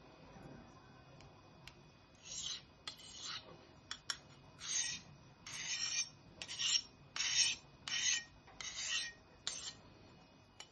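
Knife blade being sharpened freehand with a handheld sharpening bar: a run of about nine short scraping strokes of stone on steel, starting about two seconds in, with a couple of faint clicks between them.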